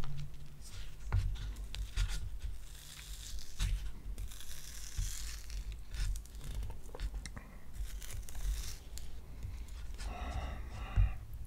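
Dessert cup packaging being torn open and crinkled close to the microphone, in several tearing spells, with light knocks from handling.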